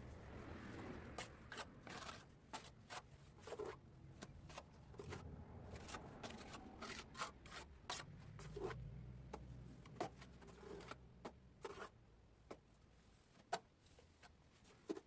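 Bricklaying by hand: faint scraping of a trowel in mortar, with scattered light clicks and knocks as the old clinker bricks are set and tapped level.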